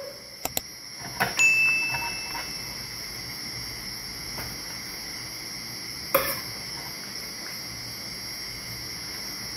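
Metal ladle clinking against a stainless steel pot while scooping stew: a couple of light taps, then a louder clink about a second in that rings on briefly, and another knock about six seconds in. A steady high-pitched drone runs underneath.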